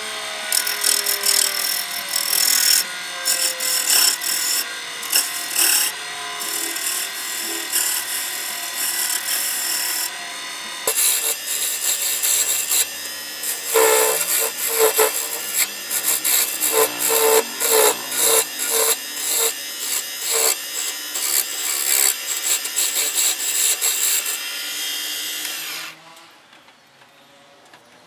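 Turning tool cutting and scraping a spinning hardwood blank on a wood lathe: a rasping hiss that comes and goes in short strokes over the motor's hum, with a run of quick repeated scrapes in the middle. The cutting stops near the end, leaving a faint sound.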